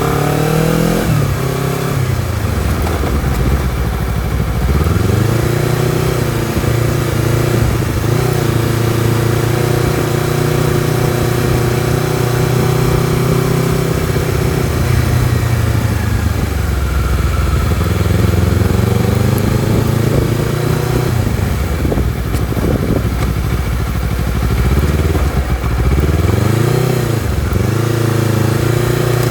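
Honda CBR250RR engine and exhaust under way, the pitch climbing and dropping as it revs up through the gears and eases off. There is a long steady stretch in the middle and several quick rises and falls near the end.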